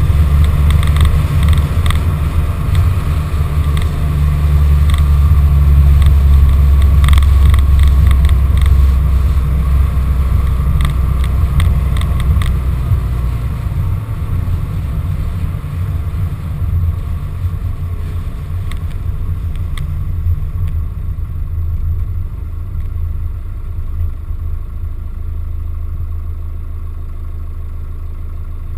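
A van driving along a rough lane, heard from a GoPro mounted on the van: a steady low engine and road rumble with frequent knocks and clatter through the first half, both getting quieter in the last third.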